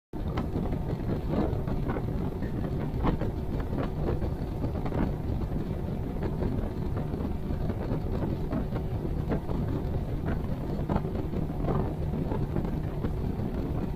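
Small boat underway: outboard motor running under heavy wind buffeting on the microphone, with frequent irregular knocks of the hull slapping on chop.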